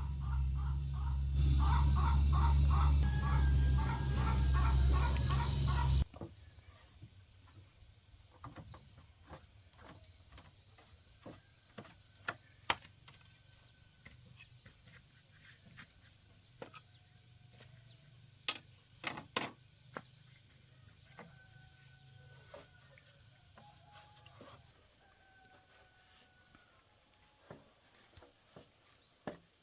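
Rural outdoor ambience: insects keep up a steady high chirring, birds give short whistled calls, and there are scattered sharp taps and clicks. It opens with about six seconds of a much louder sound, a deep rumble with fast rhythmic pulsing, that cuts off suddenly.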